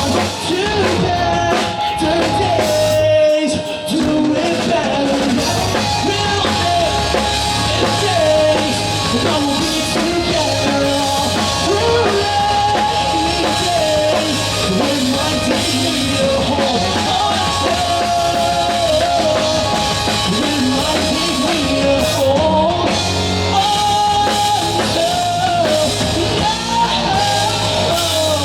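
Live rock band playing a song, with a singer's voice over a drum kit and bass.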